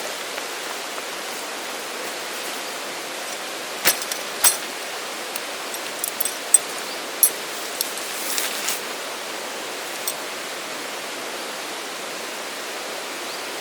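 Steady rushing noise like a flowing stream, with a scattered run of sharp clicks and knocks from about four to ten seconds in.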